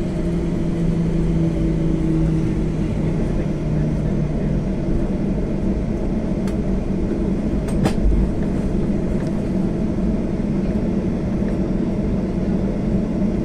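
Cabin noise of a jet airliner taxiing: a steady low rumble of engines and wheels, with a humming tone that fades away a few seconds in. Two sharp clicks about a second and a half apart near the middle.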